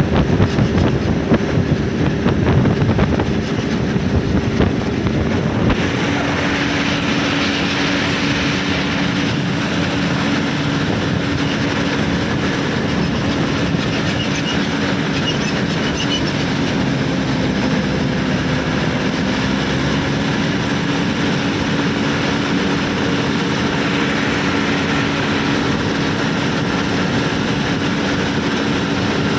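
A heavy vehicle's engine running steadily. It is rough and rumbling for the first six seconds or so, then settles into an even hum with a held tone.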